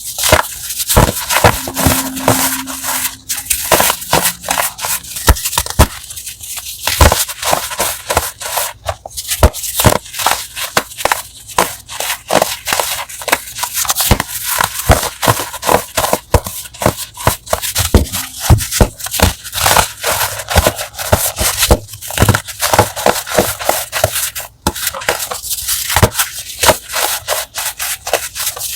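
Crunchy ASMR chalk block being crushed by hand: a dense, continuous run of sharp crackling crunches.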